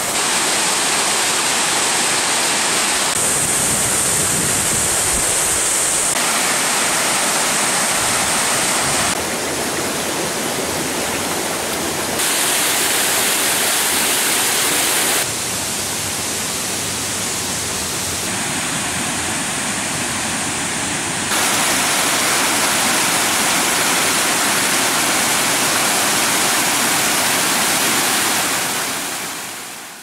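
Waterfall rushing: a steady, even roar of falling water whose loudness steps up and down every few seconds, fading out near the end.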